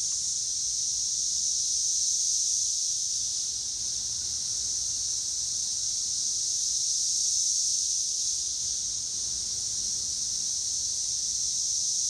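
Chorus of Brood X periodical cicadas singing in the treetops: a continuous, high-pitched buzzing drone that slowly swells and eases a few times.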